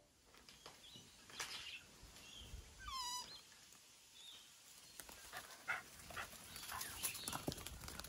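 Faint garden ambience with birds calling: scattered short chirps and one longer call about three seconds in, then light rustling and clicks.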